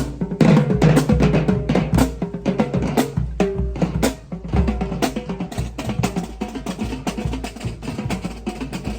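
Live drum ensemble playing a fast, busy rhythm of dense drum strokes with bass-drum hits.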